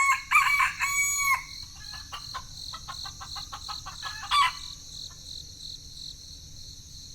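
A rooster crowing in the first second or so, followed by a run of short hen clucks, over a steady high-pitched tone.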